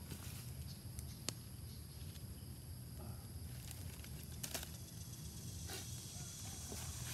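Light rustling and a few sharp clicks on dry leaf litter, about a second in, again past the middle and near the end, over a steady low wind rumble on the microphone.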